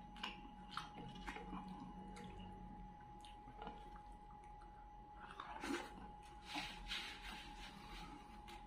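Close-up chewing and wet lip-smacking of someone eating fried fish and rice by hand. Scattered soft clicks, with a busier run of louder smacks a little past halfway, over a faint steady hum.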